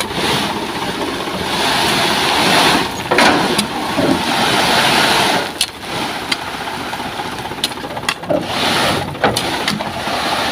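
Heavy diesel machinery running loudly at the road works, a rough noisy engine sound that swells and dips, with scattered clanks and knocks.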